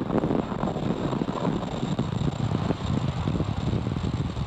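Steady rushing wind noise with crackling buffeting from the Falcon 9 first-stage booster, picked up on its onboard camera as it falls back through the atmosphere.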